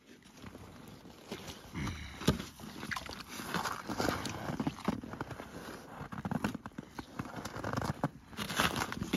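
Water sloshing and gurgling in a hole cut in lake ice as a long pole is worked in it, with irregular knocks and scrapes of the pole and ice chunks against the ice edge. There are sharper crunching scrapes near the end.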